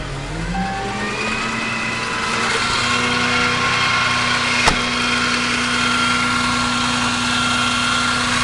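Ram service truck's engine speeding up from idle to a steady higher idle over about a second and a half as the PTO is switched on, then running evenly. A short dash beep sounds near the start, and a sharp click about halfway through.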